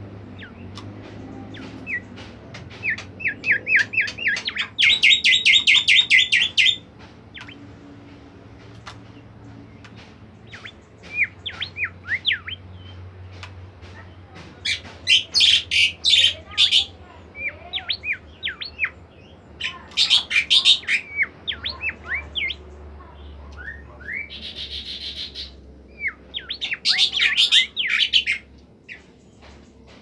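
Caged golden whistler (bimoli) singing nonstop: strings of short, rising whistled notes broken several times by loud, fast, rattling trills.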